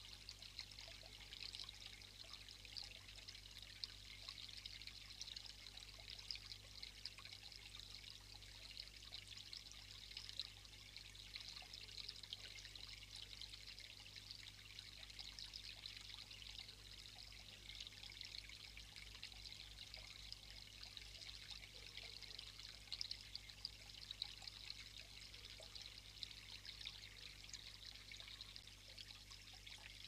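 Faint, steady trickle of water from a small garden water feature pouring over rocks.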